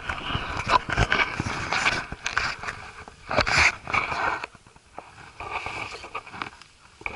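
Boots and hands scraping and knocking on limestone rock during a close, unroped scramble down a rock face, with clothing rustle and the climber's heavy breathing right at the microphone. The knocks and scrapes come thick at first and thin out about halfway through.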